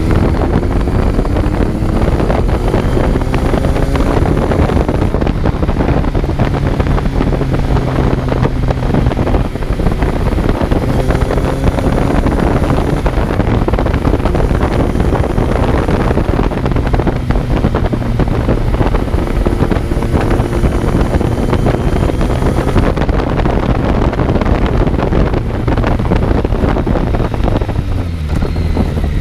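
Kawasaki Z900's inline-four engine pulling hard on the road, its pitch rising through each gear and dropping back at the shifts, several times over. Heavy wind rush on the microphone runs underneath.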